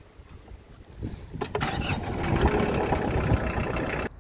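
Compact tractor running as it drags a box blade over a gravel road: a dense rumbling noise that grows louder about a second in, with a few sharp clicks, and cuts off abruptly near the end.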